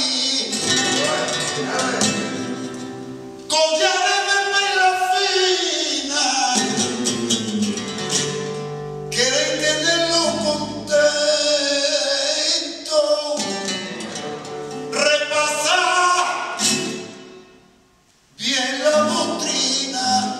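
Male flamenco singer singing long, wavering held phrases, accompanied by a flamenco guitar. Near the end both fall silent for a moment before starting again.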